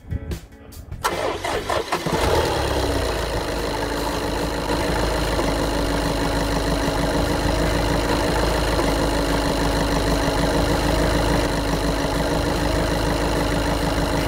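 Volkswagen Golf VII 1.6 TDI four-cylinder diesel engine cranked by the starter about a second in, catching at once and then idling steadily.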